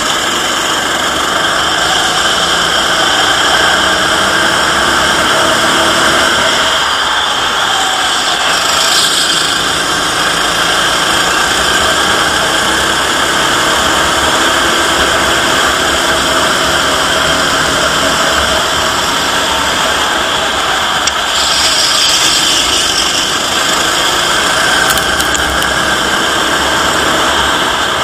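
Go-kart engine running hard on the track, heard through an onboard camera's microphone, its pitch rising and falling with the throttle through the corners. A steady rushing noise of wind on the microphone and vibration sits over it.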